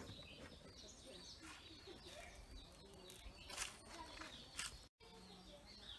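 Near silence with faint birds chirping in the background and a couple of soft clicks in the second half.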